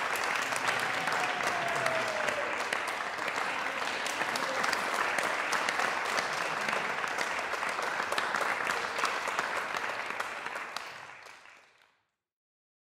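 Audience applauding steadily, dense clapping that fades out to silence about eleven seconds in.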